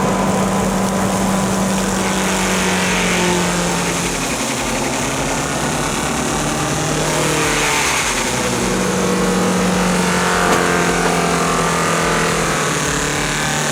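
Forestry mulcher (forest mower) running hard while grinding a stump, an engine drone over a rough grinding noise. The engine pitch sags about four seconds in, climbs back a few seconds later and drops again near the end, as the machine loads up and recovers.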